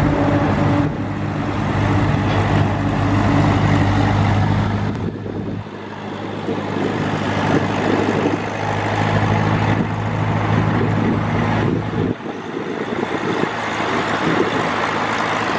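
Engine of a vintage flatbed lorry running with a steady low note as it drives slowly past, the sound of a vintage vehicle parade.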